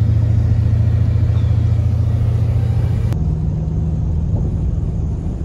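Steady low engine and road drone of a motor vehicle, like riding inside a car. The sound changes abruptly about three seconds in, then the drone carries on.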